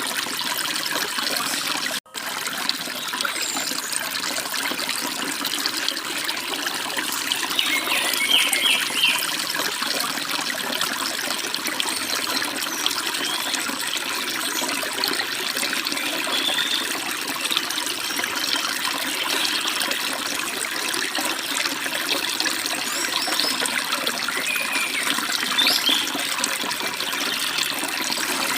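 Forest stream running and babbling steadily, with a few short bird chirps now and then above it. The sound cuts out for an instant about two seconds in.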